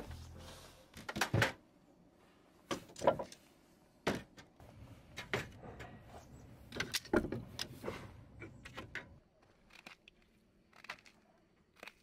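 Split firewood pieces clacking together and metal tongs knocking against wood and the steel fire pit as leftover logs are picked out and stacked, in irregular bursts of a few knocks each, fainter near the end.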